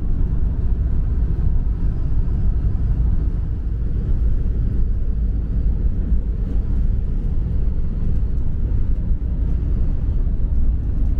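Motorhome driving at highway speed, heard from inside the cab: a steady low rumble of engine and road noise.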